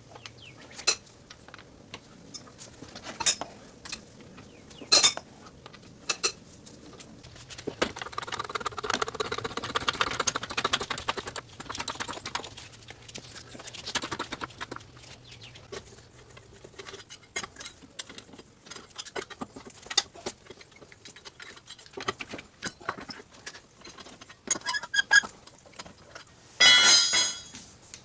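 Scattered metallic clinks, knocks and rattles of a floor jack and hand tools being worked under a car, as it is jacked up and a front wheel is taken off. There is a stretch of dense rattling about a third of the way in, and a short, loud burst of metallic noise near the end.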